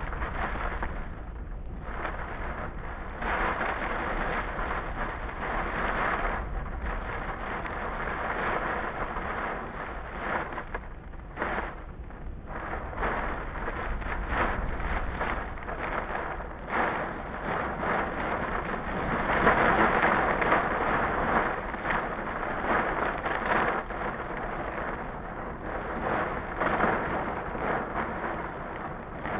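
Hail and heavy rain drumming on a stopped car's roof and windshield, heard from inside the car. The pelting is dense and continuous and grows heavier about two-thirds of the way through.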